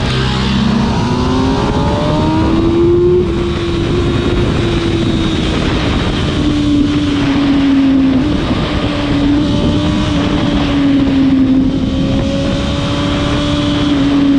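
Kawasaki ZX-6R sport bike's inline-four engine under way, its revs climbing over the first few seconds and then holding nearly steady at cruising speed, with wind rushing over the microphone.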